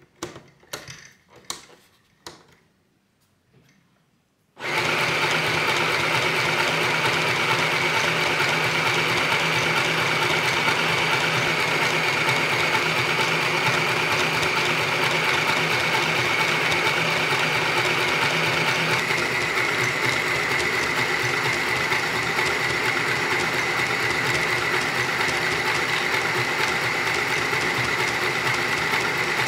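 A few clicks as the stitch selector dial of an Easymaxx compact sewing machine is turned, then, about four and a half seconds in, the machine starts and runs at a steady speed, its motor whining and its needle clattering as it stitches through t-shirt fabric. The whine drops slightly in pitch about two-thirds of the way through.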